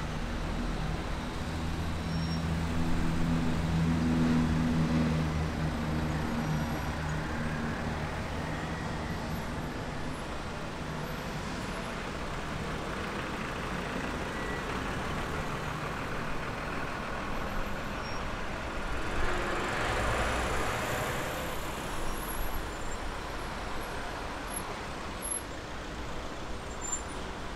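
Heavy road traffic, cars and trucks passing steadily. A truck's diesel engine hum stands out in the first few seconds, and another vehicle swells past, loudest about twenty seconds in.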